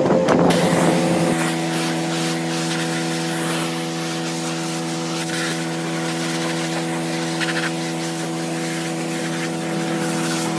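An engine running steadily at a constant speed, a hum that holds one pitch throughout, with a faint hiss over it.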